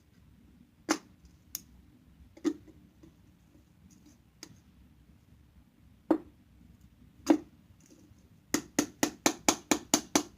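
Sharp taps or clicks on a hard object: a few scattered single taps, then a fast, even run of about five taps a second near the end.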